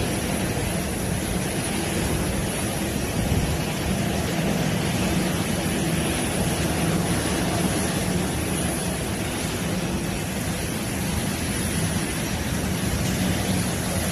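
Steady, loud roar of torrential rain and floodwater, with a low steady hum underneath.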